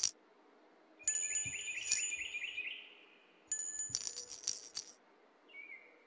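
Two short runs of tinkling, bell-like sound effects, the first with a warbling whistle through it, starting about a second in and again about three and a half seconds in.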